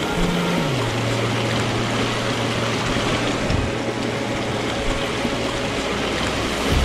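Mountain stream rushing and splashing over granite rocks, a steady noise of flowing water. A low held note runs underneath and drops in pitch under a second in.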